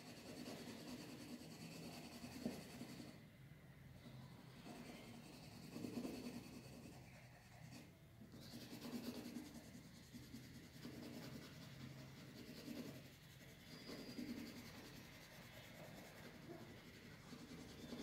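Green colour pencil shading on drawing paper: a faint scratchy rubbing in repeated back-and-forth strokes.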